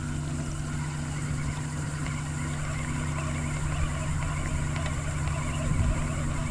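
Boat engine running steadily, a constant low-pitched hum.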